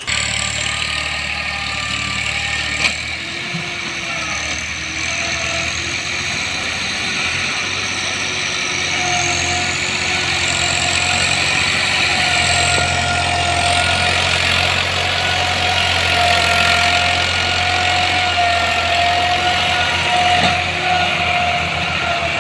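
Massey Ferguson 260 tractor's diesel engine running steadily as it pulls a loaded trailer, getting a little louder about halfway through. A single sharp click about three seconds in.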